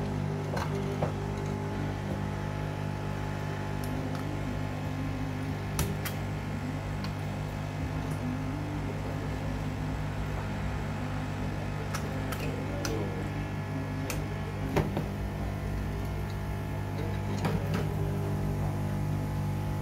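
Hot air rework gun blowing onto a power supply circuit board, its blower giving a steady hum. A few sharp clicks of tools and parts against the board and metal case come through it, the loudest about fifteen seconds in.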